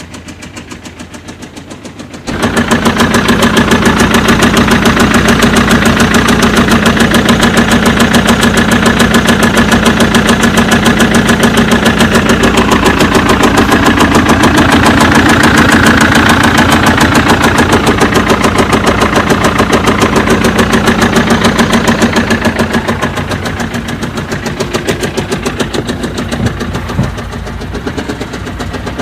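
BMW engine running with a rapid, regular knocking clatter, the abnormal engine knock ('tab tab tab') being demonstrated. The sound becomes much louder about two seconds in and eases off somewhat near the end.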